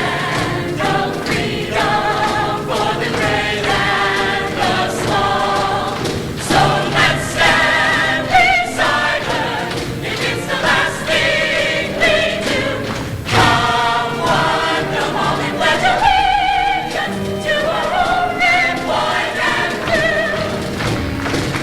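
Show choir singing together, several voices with vibrato moving through a sung passage.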